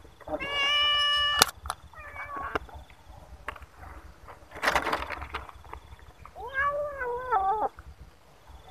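Hungry stray kittens meowing while waiting to be fed: a long, flat-pitched meow near the start, a shorter one soon after, and a wavering meow near the end. A short rustle comes about halfway through.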